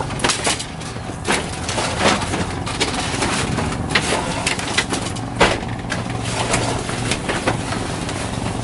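Scattered sharp clicks and cracks at irregular intervals, a dozen or so, over steady low background noise.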